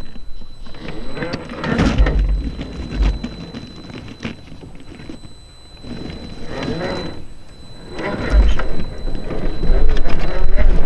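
Electric motor and gear drivetrain of a 1/8-scale RC rock crawler whining as it crawls over rocks, rising and falling with the throttle in several spurts, with bursts of low rumble.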